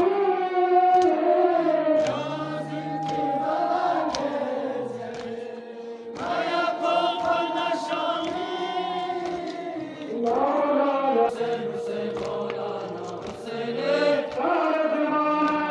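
A noha, the Shia mourning lament, chanted by massed male voices over loudspeakers in long held lines. Short sharp slaps, the mourners beating their chests in matam, keep time about once a second.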